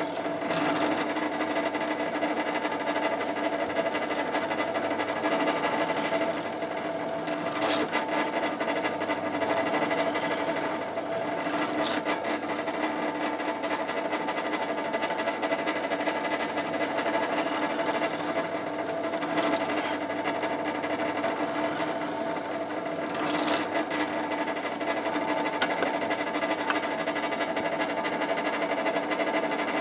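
Bench drill press motor running with a steady hum while a small twist bit bores screw holes through timber slats. Five times, spaced a few seconds apart, a short high squeal falls in pitch as the bit cuts.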